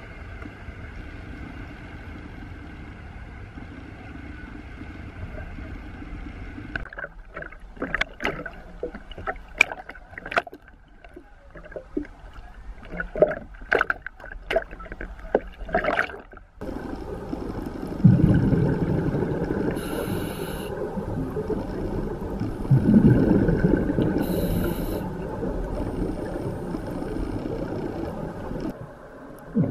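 Dive boat underway with wind and water rushing past, then waves slapping and splashing around a swimmer at the choppy surface. After that come underwater scuba sounds: a diver's exhaled bubbles rumbling in two loud surges about five seconds apart, with brief regulator hisses between them.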